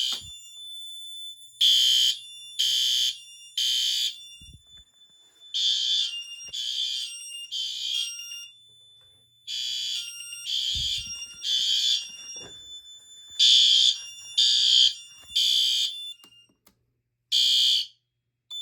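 Fire alarm horn sounding in the temporal-3 evacuation pattern, groups of three short blasts repeating about every four seconds, with the system in alarm from a smoke detector set off by test smoke. It gives a single last blast near the end and then stops as the alarm is silenced.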